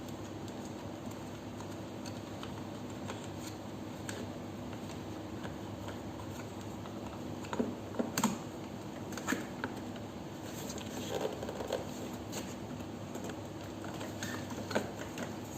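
Scattered light clicks and knocks of plastic parts and a metal supporting rod being handled and fitted under an upturned children's ride-on bike, busiest in the middle, over a steady low hum.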